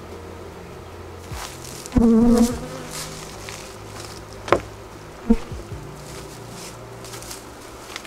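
Honeybees buzzing around an open hive, with one bee passing close for a loud, pitched buzz about two seconds in. Two sharp knocks follow, around four and a half and five seconds in, as the wooden hive parts are handled.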